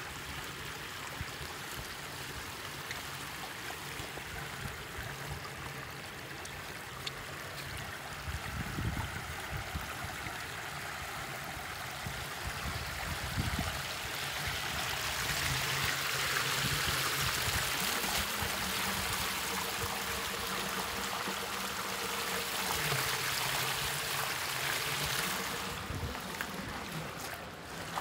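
Muddy floodwater running and splashing over rocks. It grows louder about halfway through, where the runoff pours over a concrete ledge into a churning pool.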